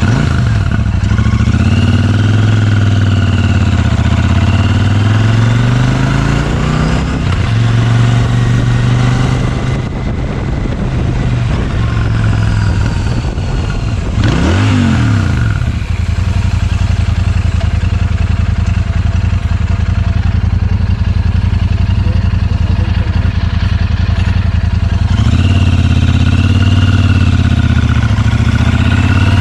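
Royal Enfield Super Meteor 650's 648cc twin-cylinder engine through its stock dual exhausts, heard from the pillion seat while riding. The note rises and falls in pitch as the bike accelerates and changes gear, holds steady for a long stretch in the middle, and climbs and drops again near the end.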